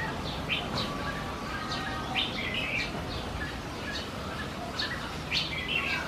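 Small songbirds chirping: a run of short, sharp high chirps, with two louder chattering calls, about two seconds in and again just before the end.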